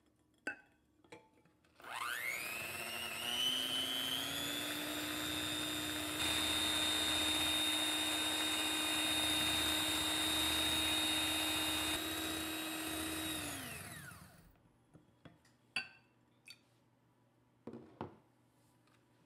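Electric hand mixer starting up, its whine rising quickly to a steady pitch as the beaters whip eggs and sugar in a glass bowl over hot water. It runs about twelve seconds, a little louder partway through, then winds down and stops, followed by a few light knocks.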